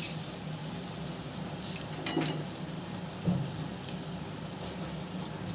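Steamed veg momos deep-frying in hot refined oil in a steel pan, a steady sizzle. A couple of light knocks come about two and three seconds in, from the perforated steel skimmer turning the momos against the pan.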